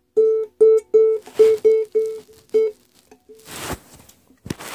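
Ukulele played: about eight short plucked notes or strums, all at the same pitch and about three a second, each dying away quickly. Near the end come rustling, rubbing handling noises.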